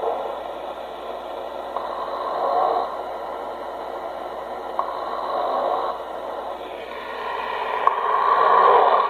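A man snoring: rough noisy breaths swelling and fading about every three seconds, the last one near the end the loudest.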